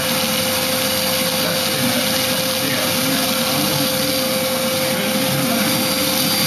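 Bench buffing machine's motor running steadily with a constant hum while a tobacco pipe is held against its cloth buffing wheel for polishing.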